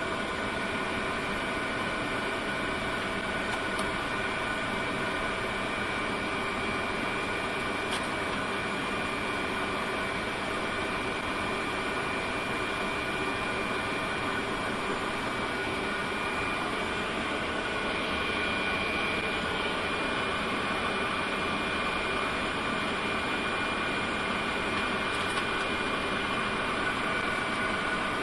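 Steady flight-deck noise of a Fokker 100 in flight: an even rush of air and jet-engine noise with several constant whining tones, the clearest a thin high whine. It grows slightly louder a little past halfway.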